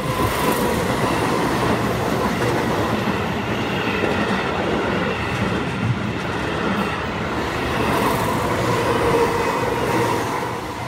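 A red-and-yellow Keihan 8000 series electric train passes close by at speed: a loud, steady rush of wheel-on-rail noise that eases off near the end as the last car goes by. The level crossing's warning bell rings faintly underneath.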